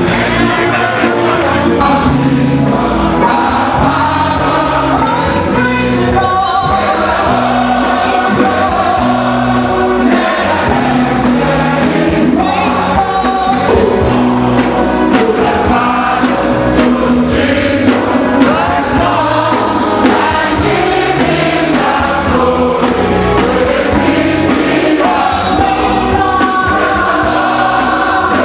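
Choir singing gospel music with a band, a steady bass line underneath.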